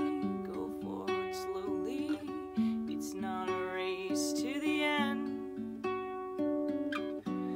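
Nylon-string classical guitar playing held chords, with a woman singing a melody over it.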